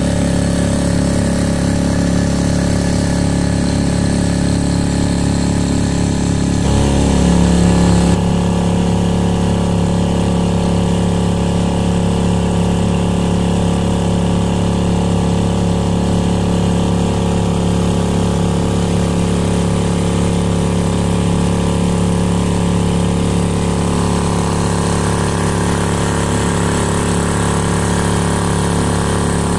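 Sail F 2.5 four-stroke outboard motor, a clone of the Yamaha F2.5, running steadily at speed and pushing a small inflatable boat, over a steady hiss of water. The engine note shifts briefly about seven seconds in, then holds steady again.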